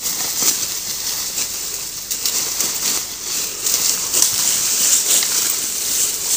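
Rainforest ambience: a steady high-pitched hiss with scattered rustles and clicks.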